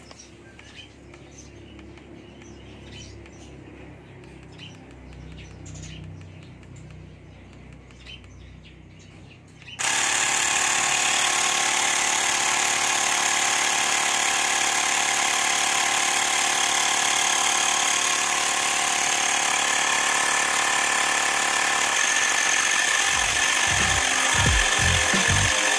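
Handheld cordless electric air pump switching on about ten seconds in and then running loudly and steadily as it inflates a scooter's inner tube; before that only faint clicks of the hose being fitted to the valve. A low pulsing joins the pump's sound near the end.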